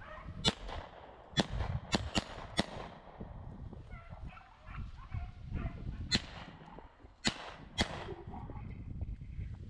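Footsteps pushing through dry brush and leaf litter, with a string of sharp twig and branch snaps. Beagles bay faintly in the distance, and wind rumbles low on the microphone.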